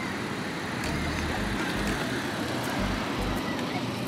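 Steady outdoor rushing noise with irregular low muffled thumps.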